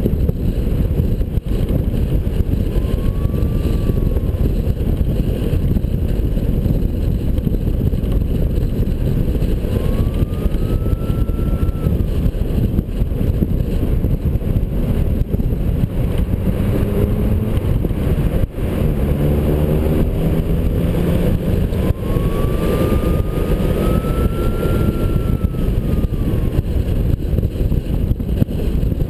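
Steady heavy rumble of wind and road noise on a camera mounted outside a moving 4WD. About two thirds of the way through, an engine's pitch rises in steps as a vehicle accelerates, and a faint whine rises and falls a few times.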